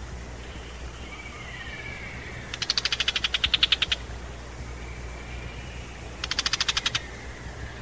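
Tiger shrike giving its harsh, rapid rattling alarm chatter, mobbing a Eurasian eagle-owl in its territory. Two bursts of about fifteen clicks a second: the first, about a second and a half long, starts a couple of seconds in, and a shorter one follows near the end.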